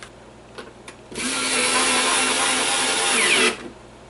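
Handheld power drill running at a steady speed for about two and a half seconds, starting about a second in and stopping suddenly, as it drills or drives into the drawer front for the handle.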